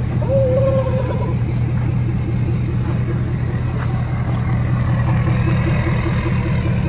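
A vehicle engine idling steadily, a continuous low hum with a faint regular pulse.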